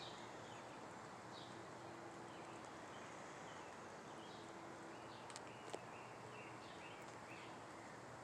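Faint outdoor ambience: distant birds chirping over and over in short calls, over a steady background hiss, with a couple of small clicks a little past the middle.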